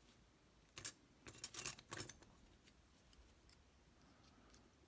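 A short cluster of light metallic clicks and clinks about a second in: small pin-tumbler lock parts and tools being handled as the driver pins are taken out of a disassembled dimple lock.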